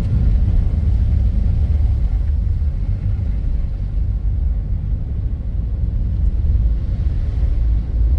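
A car driving along a road: a steady low rumble.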